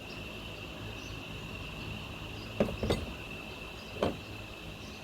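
Three dull knocks, two close together and a third about a second later, from metalwork being handled in the garage, over a steady high-pitched whine.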